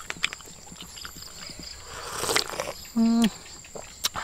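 Close-up eating sounds: scattered mouth clicks and a noisy slurp-like swell about two seconds in, then a short voiced hum about three seconds in, over a steady high chirring of insects.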